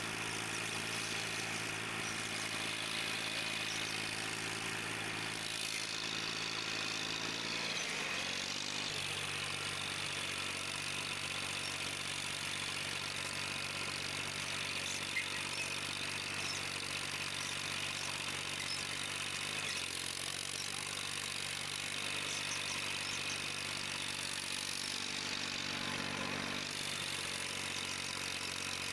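Old Massey Ferguson tractor engine running steadily under load while pulling a tillage implement through a field. Its pitch steps slightly about eight seconds in and again near twenty seconds.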